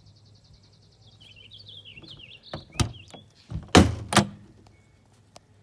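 Travel trailer entry door being unlatched and pulled open: a few sharp clicks and clunks from the handle and latch, the loudest about three and a half seconds in. Before that, a high trill and bird chirping sound in the background.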